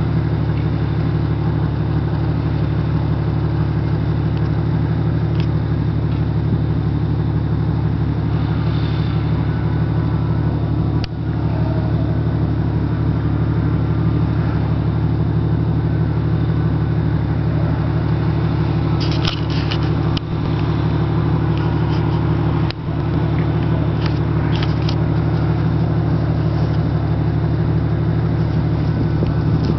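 Jeep Cherokee engine idling steadily, with a few brief knocks and crackles over it.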